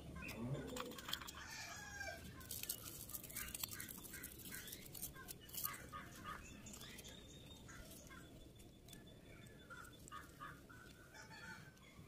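Birds calling faintly in the background, mixed with crackling and rustling as hands unwrap a leaf packet. The crackle is densest in the middle and thins out toward the end.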